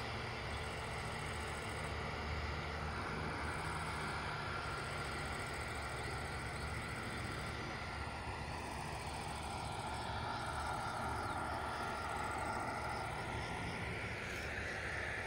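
New Holland CX740 combine harvesters running at a distance: a steady low drone of engines and threshing machinery.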